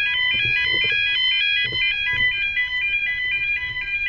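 UK level crossing audible warning alarm sounding continuously, a fast repeating pattern of high alternating tones, warning that a train is approaching.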